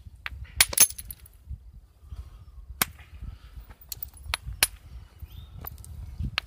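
Flintknapping percussion: a short, leather-wrapped Blackwater Draw-style billet swung like a hatchet, striking a hand-held stone piece to knock off flakes. Six sharp knocks, a quick pair about half a second in, then single strikes a second or two apart.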